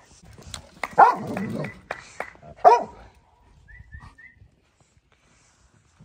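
A dog barking twice, about a second in and again near the three-second mark.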